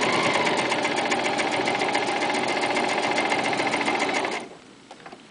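Toyota FSG325 sewing machine running steadily, stitching through two layers of vinyl with a fast, even needle rhythm, then stopping about four seconds in.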